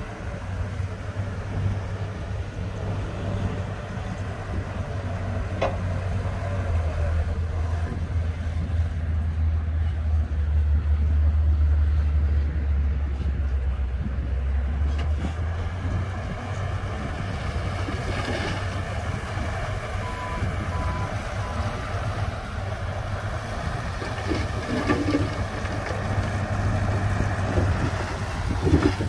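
Diesel engine of heavy earthmoving equipment running steadily, getting louder and deeper for several seconds in the middle as it works. A reversing alarm beeps three times about two-thirds of the way through.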